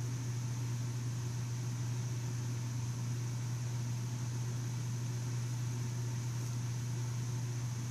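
Steady low mechanical hum with a faint hiss over it, with no separate clicks or knocks.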